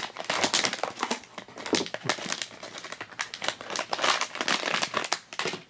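Thin plastic bag around a blind-box figure crinkling and rustling in irregular bursts as hands work it open.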